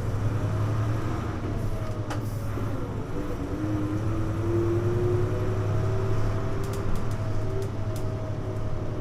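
Running sound of a Hino U-HU2MLAA city bus heard inside the cabin: a steady low drone with a whine that rises in pitch for the first half and then slowly falls as the bus drives on.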